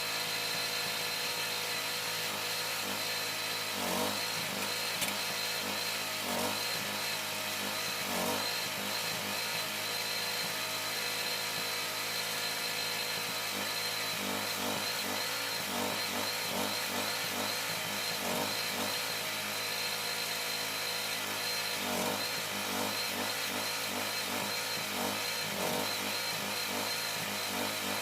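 A power tool motor running steadily during metal fabrication, with a wavering high whine and scattered knocks of metal on metal.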